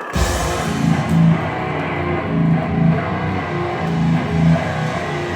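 Heavy live band music: distorted electric guitars and bass playing a heavy riff, coming in abruptly right at the start.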